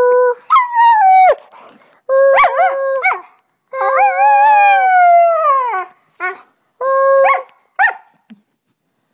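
Husky howling, a run of drawn-out notes with breaks between them, the longest in the middle rising and then sliding down in pitch.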